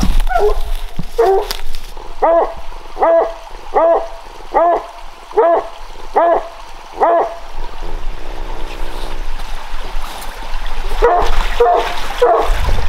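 Redbone coonhound barking treed at a den tree, the sign that the raccoon is up the tree. A steady run of barks comes about one every 0.8 s, with a quicker burst of barks near the end.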